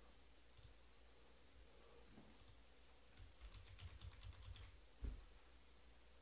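Near silence with faint clicking and tapping, including a quick run of light ticks in the middle, and a single dull thump about five seconds in.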